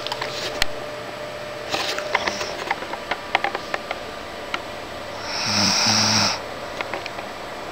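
A sleeping person snoring: one long, loud snore a little over five seconds in, with scattered light clicks before it.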